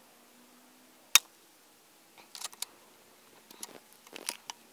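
A single shot from a .22 FX Impact MkII PCP air rifle, tuned to about 1100 fps, firing a Howler slug: one sharp crack about a second in. It is followed by a run of smaller metallic clicks and rattles as the rifle's action is worked to chamber the next slug.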